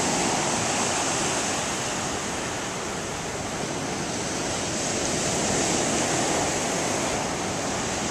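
Sea surf breaking on the shore: a continuous rushing wash that swells and eases slowly, louder at the start, dipping in the middle and rising again.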